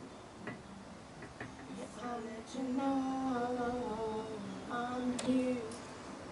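A woman's voice singing a slow melody with long held notes, starting about two seconds in. A short sharp click comes early on and another about five seconds in.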